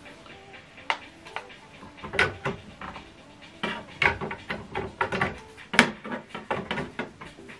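Plastic clicks and knocks as an inkjet cartridge is handled and pushed into the printer's cartridge carriage, a run of uneven taps with a few sharper clicks.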